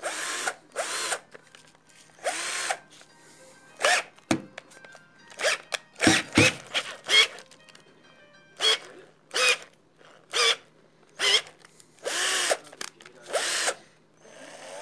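Cordless drill driver powered by a converted 3S lithium-ion pack of 18650 cells, switched on and off in many short bursts. Its motor pitch rises and falls with each pull of the trigger.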